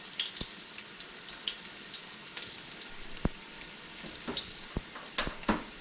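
Onion, garlic and ginger frying in oil in a pot, a steady sizzle with small crackles. About five sharp clicks sound through it.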